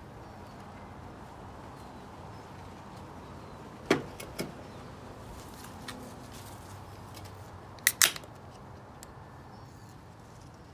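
An aluminium beer can being cracked open: a sharp double snap of the pull tab about eight seconds in. Two lighter knocks come about four seconds in, over a faint steady background hiss.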